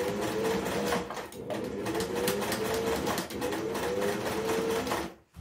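Electric sewing machine stitching fabric: a rapid, even chatter of needle strokes over a motor whine that rises and falls in pitch as the machine speeds up and slows. It stops briefly near the end.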